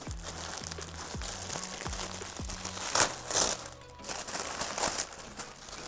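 Paper packaging crinkling and rustling as a bag is unwrapped, louder in a few bursts about three seconds in and again near the end, over background music.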